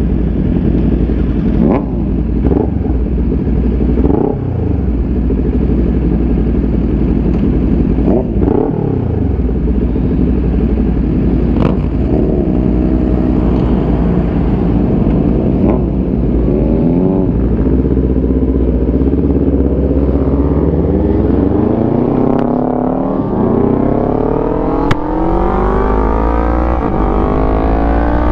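Kawasaki Ninja 400's parallel-twin engine running at low revs as the bike rolls out slowly, with other sportbikes' engines briefly revving nearby. From about 21 s in, the revs climb steadily as the bike accelerates up the road.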